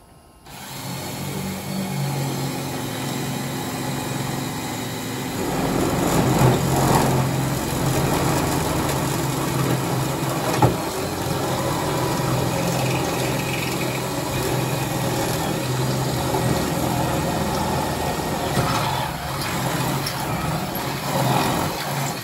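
Electric drill running steadily under load as it bores a bolt hole, with a steady hum that gets louder about five seconds in. A single sharp click comes near the middle, and the drill stops abruptly at the end.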